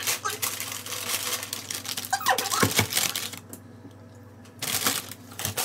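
Brown paper bags rustling and crinkling as items are packed into them by hand, with a short falling squeak about two seconds in. The rustling pauses for about a second past the middle, then starts again.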